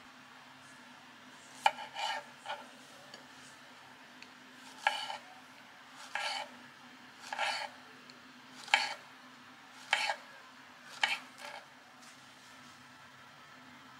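Kitchen knife slicing a peeled banana into diagonal slices on a wooden chopping board: about nine cuts, roughly one a second, each a sharp tap of the blade on the board with a short scrape.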